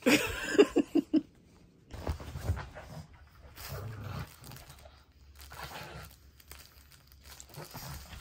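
Pugs grunting and snorting at play: a run of short, loud grunts in the first second, then scuffling and soft thumps as two pugs wrestle and tug at a toy.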